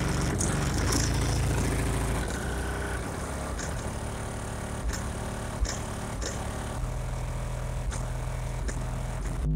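Bass-heavy rap music playing through a car's subwoofer system, heard muffled from outside the vehicle: deep bass notes that change pitch every few seconds, with faint high ticks of the beat on top.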